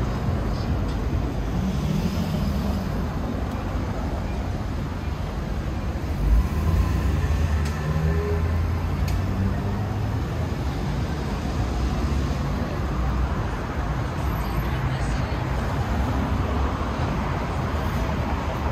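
Steady city street traffic: the rumble and tyre noise of passing vehicles, with one brief louder low thump about six seconds in.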